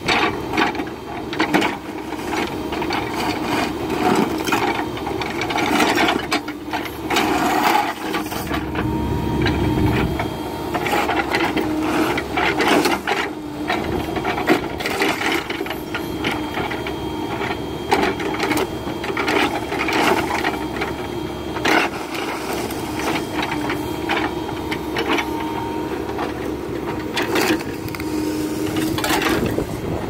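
Backhoe's diesel engine running steadily, with repeated clanks, knocks and scrapes of its steel attachment against the rail, wooden ties and ballast stone.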